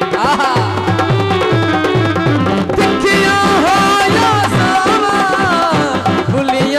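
Live Punjabi folk music at full volume: a steady drum beat under a melody that slides up and down in pitch.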